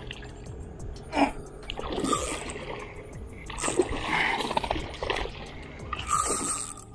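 Hooked tarpon thrashing at the surface beside a small boat, splashing water in four bursts over a few seconds.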